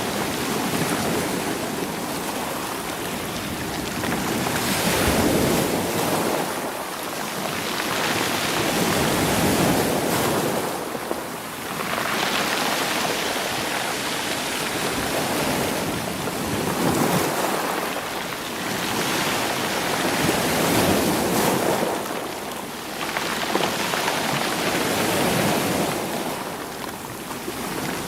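Sea waves washing against rocks and rolling the stones, a noisy wash that swells and falls back about every four seconds.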